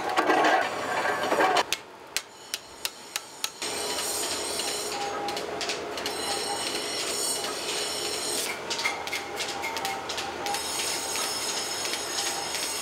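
Forge workshop metalworking: a loud burst as red-hot hoe blanks are worked in a press, then about five sharp metal knocks in quick succession. After that comes a steady machine whine with several held tones and scattered clinks.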